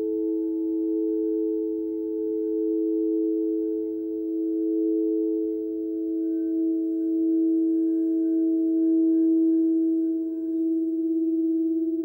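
Frosted quartz crystal singing bowls being rubbed around their rims with mallets, several bowls sounding at once as steady, overlapping pure tones that slowly swell and ease. Near the end the combined tone takes on a fast wobble in loudness.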